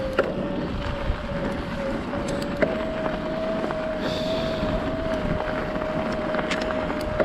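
Mountain bike riding down a trail: wind rushing on the microphone and rattling over the ground, with a few sharp knocks from bumps. A steady thin whine runs through it and steps up slightly in pitch about two and a half seconds in.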